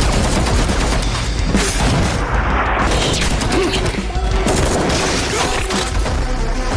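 Loud background music with a heavy bass, mixed with repeated gunshot and explosion sound effects.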